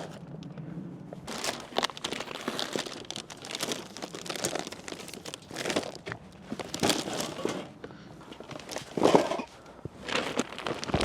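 Packaging crinkling and rustling in irregular bursts as a load of snack stock is carried and handled.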